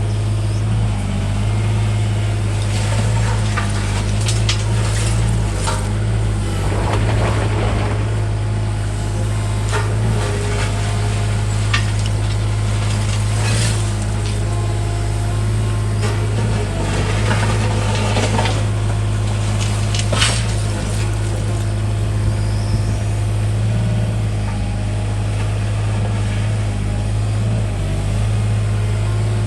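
Doosan DX27z mini excavator's diesel engine running steadily, with several short clanks and rushes of noise over it.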